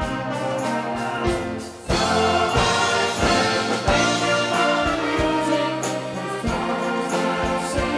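A wind band plays live, with trumpets, trombones, flutes and clarinets over a steady drumbeat. It thins out briefly just before two seconds in, then the full band comes back in louder.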